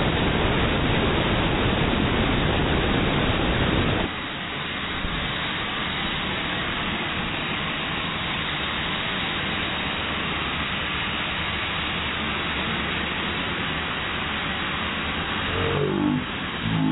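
Compressed air hissing steadily from an air-compressor blow gun held nozzle-up, keeping a ball floating in the jet. The hiss steps down in level about four seconds in, and a short wavering tone joins it near the end.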